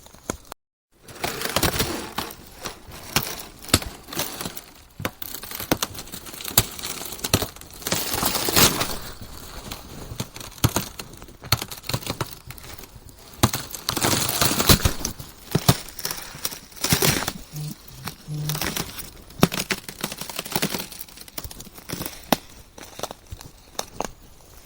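Ice cracking: a dense run of sharp cracks and snaps mixed with crackling, crunching swells. There is a brief drop to silence less than a second in.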